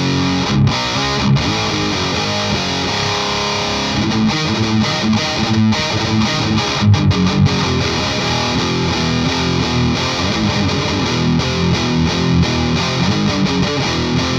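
Distorted electric guitar playing riffs and chords through a Klon-style overdrive pedal, the Parks Custom Pedals Dagon OD, into a Marshall JCM900 amp, with a few held notes about three seconds in.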